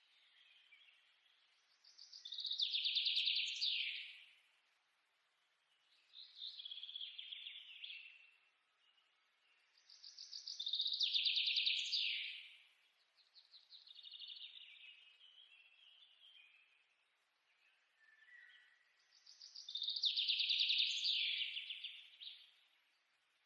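Birdsong: a rapid trilled phrase that swells and fades, repeating about every nine seconds, with softer chirping phrases in between.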